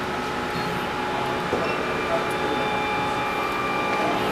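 Steady machine hum of an SMD LED rework station running, with a few faint steady tones over it.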